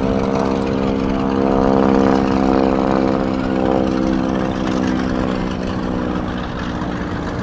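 A steady engine drone: one unchanging hum with a low rumble underneath, its higher tones fading somewhat about halfway through.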